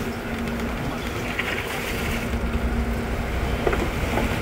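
Boat engine running steadily with a constant hum, under a rush of wind and water.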